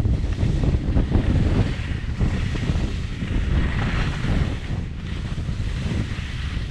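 Wind buffeting the GoPro's microphone: a loud, gusting low rumble with rough hiss above it, strongest in the first couple of seconds and easing a little later.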